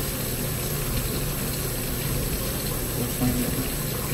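Steady rushing background noise with a low hum under it; a short faint murmur of voice about three seconds in.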